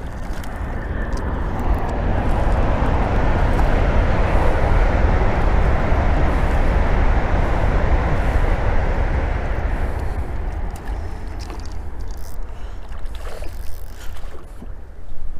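Wind rumbling on the microphone, swelling over the first few seconds and easing off after about ten, over a hooked small char splashing at the pond surface as it is played in on the line.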